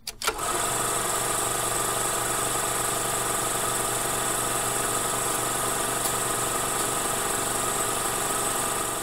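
Film projector running: a steady mechanical whir that starts abruptly with a couple of clicks and fades out near the end.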